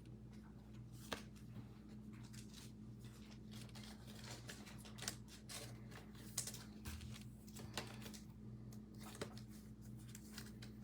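Faint, scattered clicks and light rustles of trading cards and pack wrappers being handled and sorted, over a steady low hum.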